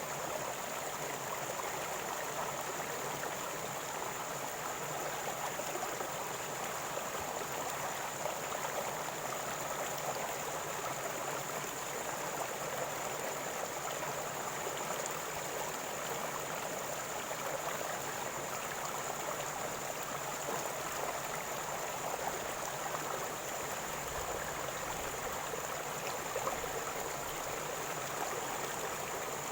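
River water flowing and gurgling, a steady even rush.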